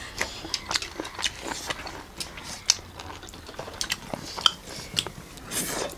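People eating with their hands and chewing with their mouths open: a scatter of wet mouth clicks and smacks, with small taps on the metal plates. There is a short noisy burst near the end.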